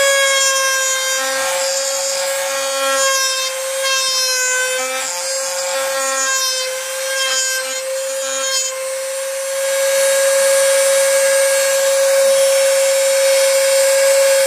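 A handheld rotary tool mounted in a homemade table runs at a steady high whine with a sanding bit fitted. For roughly the first eight seconds it sands a workpiece, with rubbing and scraping and a slight drop in pitch under the load, then it spins freely.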